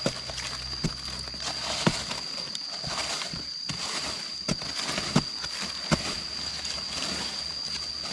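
Footsteps through dry forest leaf litter: irregular crunches and sharp clicks of twigs and leaves, over a steady high-pitched drone.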